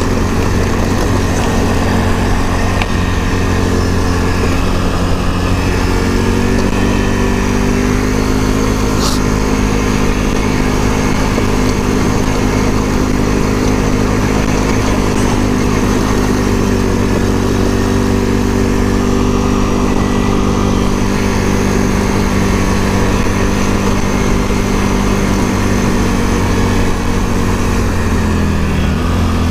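Can-Am Outlander ATV engine running steadily while riding, its pitch rising a little several seconds in and dipping briefly near the end as the throttle changes.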